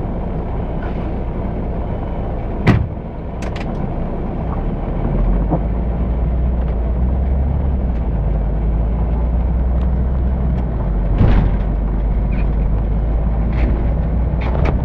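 City bus engine heard from inside at the front, running steadily and then growing louder about five seconds in as the bus pulls away. A sharp knock from the bus body comes about three seconds in, and another about eleven seconds in.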